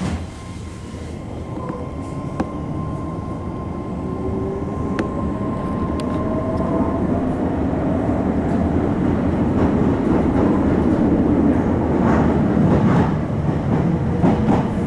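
Meitetsu electric train heard from inside the passenger car, picking up speed on a steel truss bridge. The rumble of wheels on rail grows steadily louder under a faint whine that rises in pitch, with a few sharp clicks in the first half.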